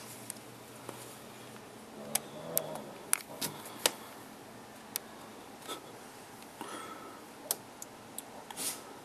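Scattered sharp clicks and short scrapes over quiet indoor room tone: handling noise from the camera as it is held against a window.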